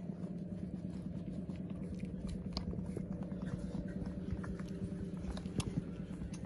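Several puppies suckling at their mother's teats: a run of small wet clicks and smacks over a steady low hum.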